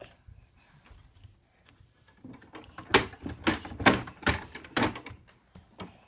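A small wooden cabinet door being handled by a baby: a run of about six wooden knocks and rattles starting about two seconds in and lasting some three seconds.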